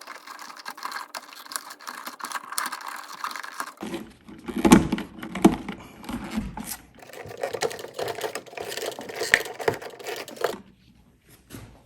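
Irregular clicks, scrapes and rustling of electrical wires being handled and pushed into a wall switch box, with a couple of louder knocks about five seconds in.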